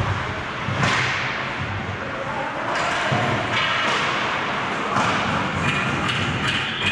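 Ice hockey game noise heard from beside the goal: a low thud at the start, then scattered sharp knocks over steady rink noise.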